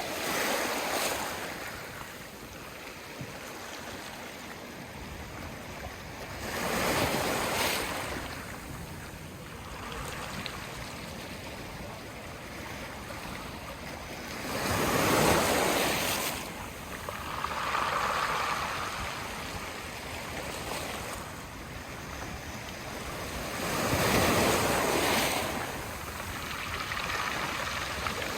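Sea waves washing in on the shore: a steady hiss of surf with several slow surges that swell and fade every few seconds, the loudest about halfway through and again near the end.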